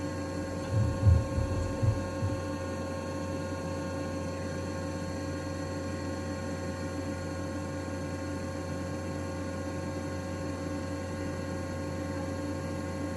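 Steady electrical mains hum with several steady tones, and a few low thuds about one to two seconds in.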